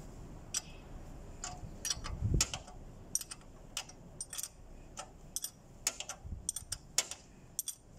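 Irregular sharp metallic clicks and clinks of a steel spanner working the bolts at the exhaust pipe-to-manifold joint of a forklift engine, with a dull knock a little over two seconds in.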